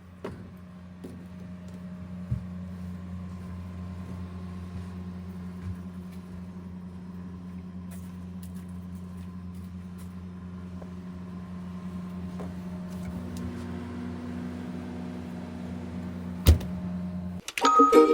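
A steady low electrical hum with a faint higher tone over it, a light click about two seconds in and a sharp click near the end, after which the hum stops suddenly and music begins.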